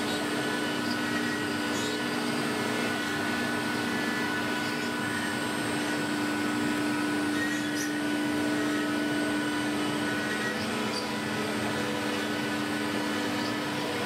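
CNC router spindle running steadily as it mills a wooden board, a constant machine hum with one strong, unchanging tone.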